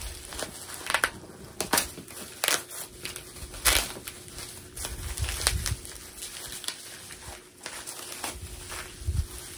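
Plastic bubble wrap being handled and pulled off a packed item, with irregular crinkling and sharp crackles, the loudest a little under four seconds in.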